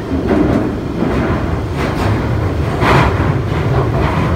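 Interior of a Central line tube train (1992 Stock) running through a tunnel: a loud, steady rumble of wheels on rails, with a brief louder burst of noise about three seconds in.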